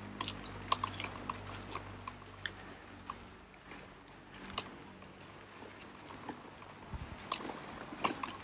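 Footsteps crunching on the ground, with many small irregular clicks. A low hum fades out about three seconds in.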